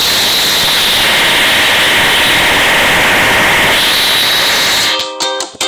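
Loud, steady hissing noise like static, broken by a few short dropouts near the end.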